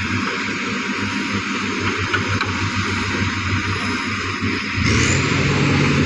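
Heavy vehicle engine running with a fast, pulsing low rumble. About five seconds in it becomes louder and steadier.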